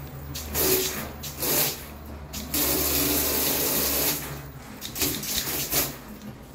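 Water squirted from a water gun against a glass door: a few short spurts, then one longer spray of about a second and a half, then two more short spurts, with a steady low hum underneath.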